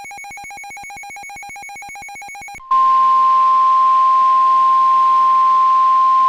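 A fast-pulsing electronic beep, like a ringer, stops abruptly. About two and a half seconds in, a loud, steady single-pitch alarm tone starts: the NOAA Weather Radio 1050 Hz warning alarm tone that comes before a new warning broadcast.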